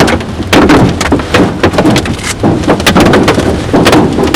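Hailstones pelting the outside of a storm-chasing vehicle, heard from inside the cabin: loud, irregular bangs, several a second, over the steady noise of rain and driving.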